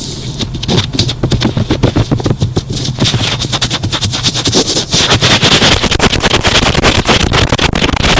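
Thick cotton swab rubbed and pressed against a microphone, making dense, rapid crackling and scratching. The crackle grows denser and brighter about three seconds in.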